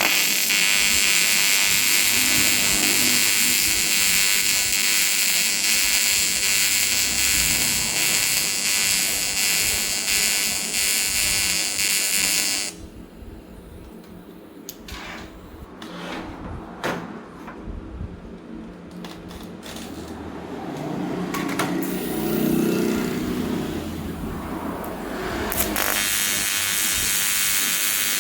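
AC TIG welding arc on aluminium, a steady buzz for about twelve seconds that stops abruptly, with a few clicks in the quieter gap, then starts buzzing again near the end.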